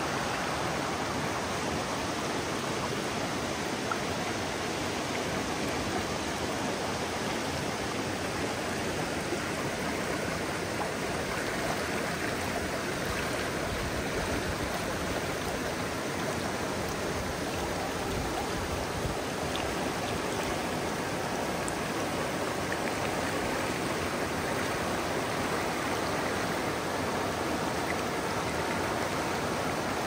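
Shallow mountain river running fast over rocks and small rapids: a steady, even rush of water.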